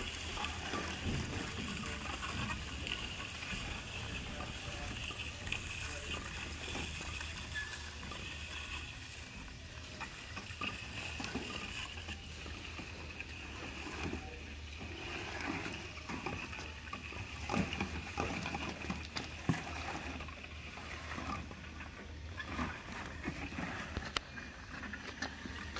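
Stainless steel bottle turntable running with a steady low hum, plastic bottles rattling and knocking against each other and the guide rail as they ride around, with a few sharper knocks in the second half.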